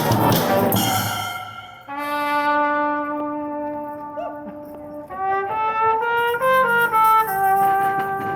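Street brass band playing: the full band with drums breaks off about a second in, then the horns hold a long chord, play a short phrase of notes stepping up and down, and settle on another held chord.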